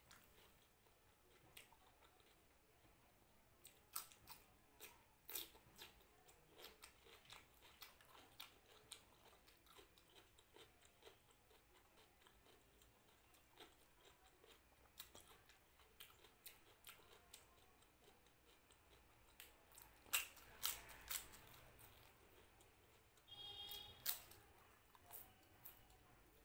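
Faint close-up chewing and crunching of raw cucumber and crisp papad, with scattered sharp crunches and mouth clicks; the loudest crunches come about a fifth of the way in and again near the end.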